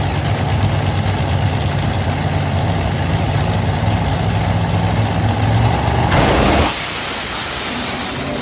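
A drag-racing car's engine running loud and deep, starting abruptly. About six seconds in there is a harsher, noisier burst, after which the sound drops back to a lower level.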